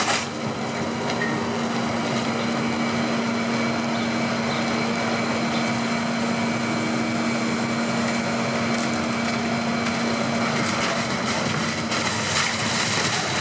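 Wood-recycling machinery running steadily: a material handler's engine and hydraulics working its grab alongside a running wood shredder, a steady mechanical hum with a constant low tone.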